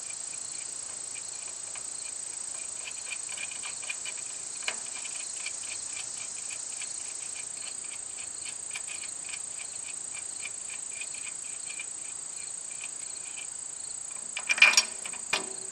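Insects chirping outdoors: a steady high-pitched buzz with rapid pulsed chirps under it. Near the end comes a brief, louder noise.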